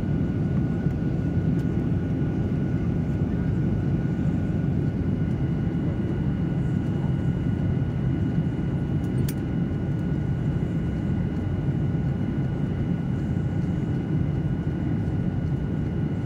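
Steady low roar of a Boeing 737-900ER's CFM56-7B jet engines and airflow heard inside the cabin in flight, with a constant high whine from the engines over it.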